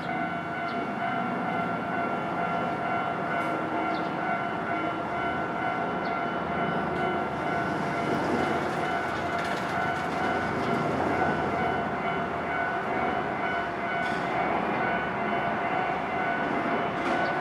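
Japanese railway level-crossing alarm ringing steadily as a Nankai Electric Railway train passes over the crossing, with a few faint clicks.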